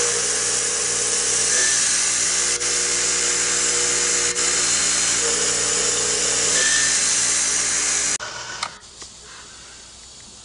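Cam grinding machine running, its grinding wheel taking a light cut on a miniature steel camshaft: a steady high hiss over the motor's hum. It cuts off abruptly about eight seconds in, leaving a much quieter stretch with a few light clicks.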